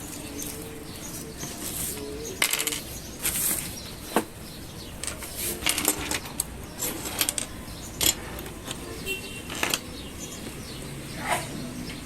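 About a dozen small, hard clicks and light metallic taps at irregular intervals, from hand tools and small parts being handled during phone repair work.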